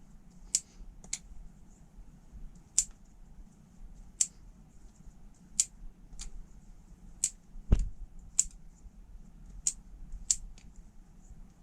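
Squid Industries Squiddy balisong being flipped: sharp clicks of the handles and pivots at an irregular pace of about one a second, with one heavier knock about two-thirds of the way through.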